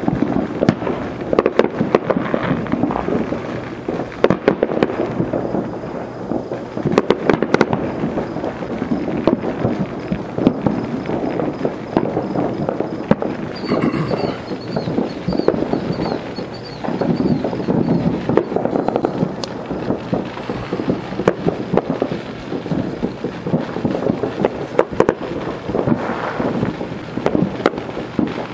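Many fireworks going off at once: a dense, continuous stream of overlapping pops, crackles and bangs over a steady rumble. A high whistle rises out of it about halfway through.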